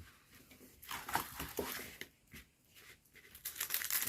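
Soft, irregular rustling and rubbing as a diamond painting canvas is handled and smoothed flat, in short bursts about a second in and again near the end.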